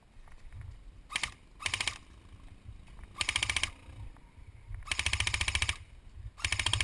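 Airsoft electric gun (G&G UMG, a UMP45 replica) firing five full-auto bursts, each a rapid run of clicks, the longest lasting about a second near the middle.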